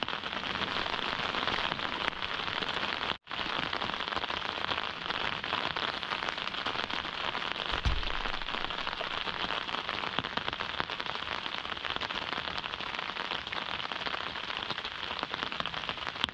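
Rain falling steadily, a dense even crackle of drops. It cuts out for an instant about three seconds in, with a single low thud near the middle.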